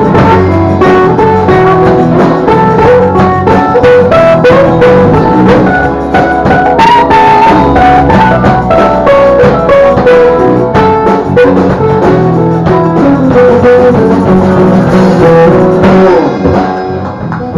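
Live blues band playing: strummed acoustic guitars, electric bass and a drum kit keeping a steady beat under a wailing harmonica lead with long, bent notes. The band thins out near the end.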